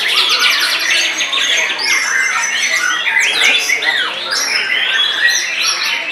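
Several white-rumped shamas (murai batu) singing loudly at once. It is a dense, overlapping chorus of varied whistles, rapid trills and harsh chattering notes.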